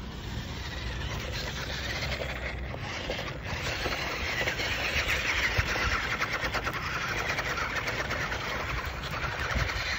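Electric motors and gearing of a budget RC rock crawler whining as it drives over gravel. The whine grows louder about four seconds in and drops in pitch toward the end.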